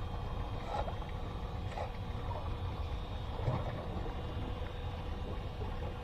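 Steady low rumble with a constant hum aboard a small wooden fishing boat on open water; no distinct event stands out.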